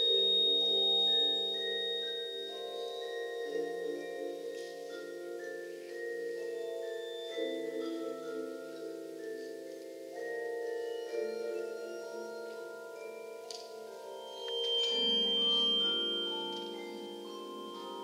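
Mallet percussion ensemble of marimbas and vibraphones playing slow, layered chords of long held notes that shift every second or two. The sound swells louder at the start and again about three-quarters of the way through.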